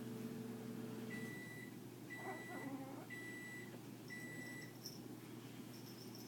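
A steady electrical hum cuts off about a second in. Then an electronic beeper sounds four even high beeps, about one a second.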